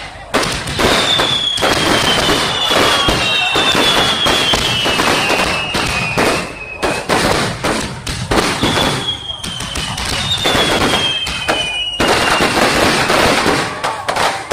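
Aerial firework shells bursting in a dense, rapid barrage of bangs. Over the bangs come several long whistles sliding down in pitch, in two spells.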